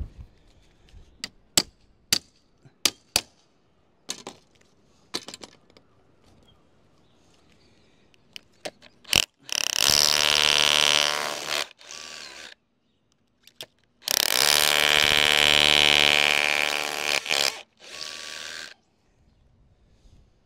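Sharp scattered taps and knocks, then a power tool run twice in loud bursts of about two and a half and three and a half seconds, each cutting off with a short winding-down tail.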